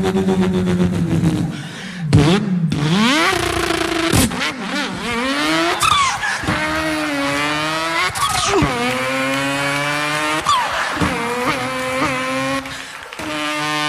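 A man imitating a car engine with his voice: the pitch climbs as if revving through the gears and drops back at each shift, with a few quick swooping sweeps in between.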